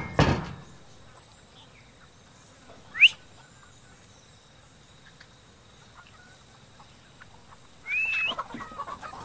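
Hens clucking in a quick run of short calls near the end, opening with a brief call. Before that there is a short rising whistle about three seconds in, and a couple of loud knocks right at the start.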